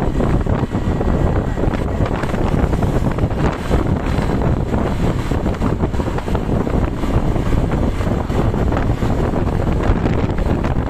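Heavy wind buffeting on the microphone over steady road and engine noise from travelling at speed in traffic. No horn sounds.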